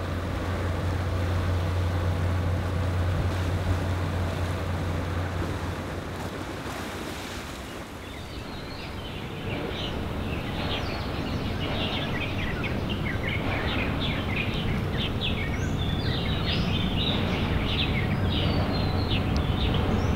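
Steady low drone of a small cargo boat's engine over the wash of the sea. After about eight seconds it gives way to birds chirping in trees, many short high calls over a soft outdoor hush.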